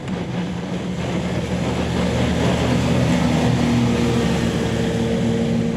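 WaterCar Panther amphibious Jeep's Acura 3.7-litre V6 engine running hard as it speeds across the water over a steady rush of water and spray. The engine note climbs and gets louder about two seconds in, then holds.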